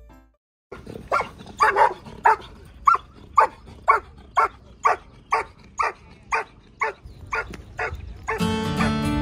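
German Shepherd dog barking steadily and rhythmically at a helper in the blind, about two barks a second: the hold-and-bark of protection work. Acoustic guitar music comes in near the end.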